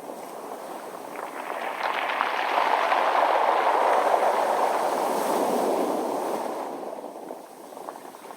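A wave washing up a pebble beach: the surf swells over a couple of seconds, runs loudest for a few seconds, then drains away. Rolling pebbles rattle and click as the water comes in, and again near the end.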